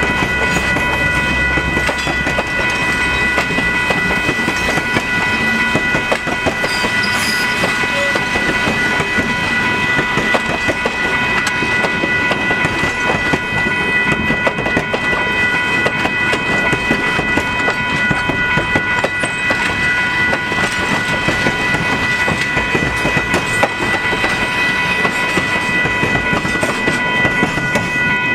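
Heritage passenger coaches rolling past on the rails, wheels clattering over the track, with a steady high-pitched tone throughout.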